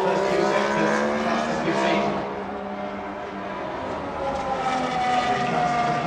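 Two 2014 Formula One cars with 1.6-litre V6 turbo-hybrid engines running past together. The engine note dips about two seconds in, then swells again with its pitch falling near the end.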